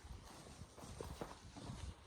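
Irregular soft thuds and knocks, several a second, over a faint steady hiss.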